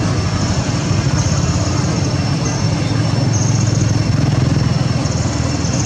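An engine running steadily with a low hum, under a high buzz that comes and goes in stretches of about a second.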